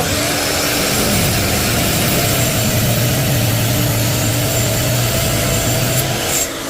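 Power saw cutting through a cherry firewood log, a loud steady cutting noise over a low motor hum that starts abruptly and stops near the end.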